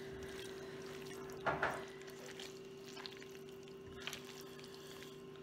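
Spatula folding dressed bowtie pasta salad in a stainless steel bowl: soft wet squelching and stirring, with a louder squish about a second and a half in. A steady faint hum runs underneath.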